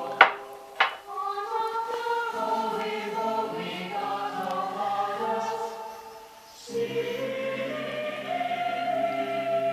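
A choir sings a Christmas song from an old vinyl record, with sustained chords that briefly fade and then resume. Two sharp knocks come near the start.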